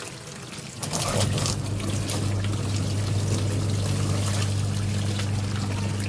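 Water pouring from a tap into the tub of a Toshiba semi-automatic washing machine. About a second in, the wash motor starts with a steady hum and the pulsator turns, churning the water: it is being run against the water's resistance to work the stuck pulsator off its shaft.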